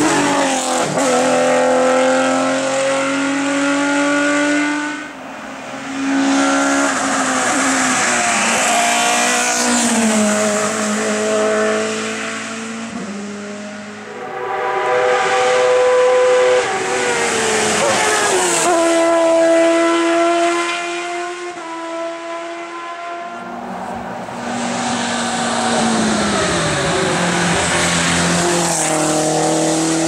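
Hill-climb race cars at full throttle, one after another, each engine revving up hard and stepping back down at gear changes as the car climbs through the bends. About four passes follow each other, with a brief dip between cars.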